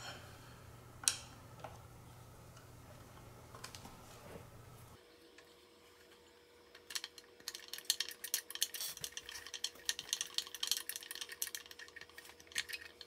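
The long 5 mm Allen bolt that holds a Monitor Audio Bronze 100's 8-inch woofer being unscrewed from the back of the cabinet: a quick run of small metallic clicks and scrapes as the bolt turns out, starting about seven seconds in.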